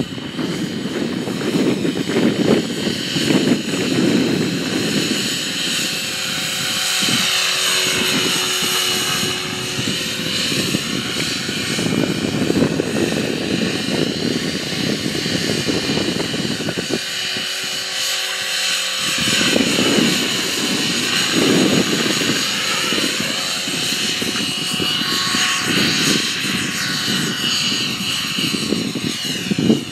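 Align T-Rex 500 electric RC helicopter in flight: a continuous rotor and motor whine whose pitch sweeps down and back up as the helicopter makes passes.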